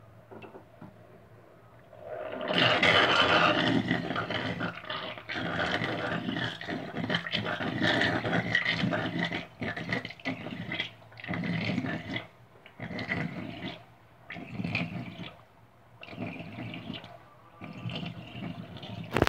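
Water rushing and sloshing as clothes are washed: a loud surge about two seconds in, then repeated sloshes roughly every second or so.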